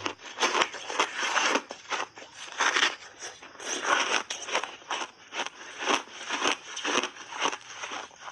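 Crunchy white block ice being bitten and chewed: a quick, irregular run of sharp crunches and crackles, several a second.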